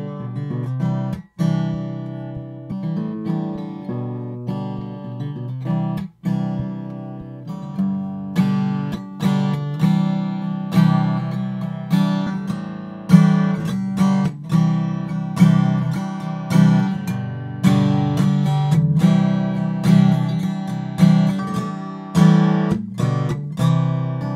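Recorded acoustic guitar strumming chords, each attack ringing out, played back from a multitrack session and switched between the same take captured by four different studio microphones. The sound breaks off briefly about a second in and again about six seconds in.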